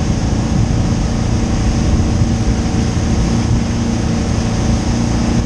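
A wake boat's engine runs steadily at towing speed, along with the rush of water churning in its wake.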